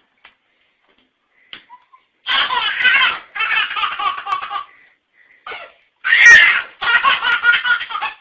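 A baby laughing hard in repeated belly-laugh bursts, starting about two seconds in, with one loud high squeal partway through.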